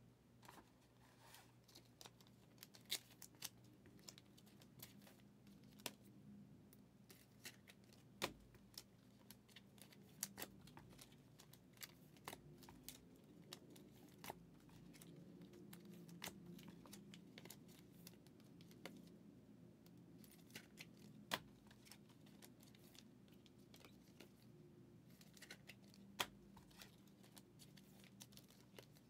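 Faint, irregular clicks and light rustling of trading cards being handled and flipped through, with a few sharper clicks standing out.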